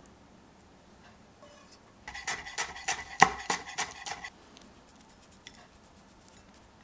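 Chef's knife chopping parsley on a wooden cutting board: a quick run of about a dozen chops, roughly five a second, lasting about two seconds, with the steel blade ringing faintly on each stroke.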